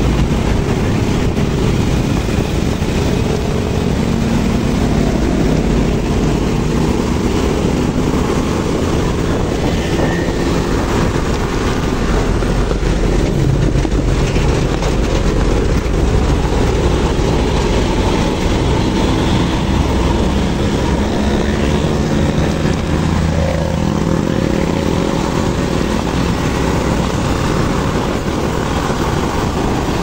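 Traffic noise from a fast uphill chase behind a diesel coach: engines running hard under load over steady wind and tyre noise, the engine note shifting up and down now and then.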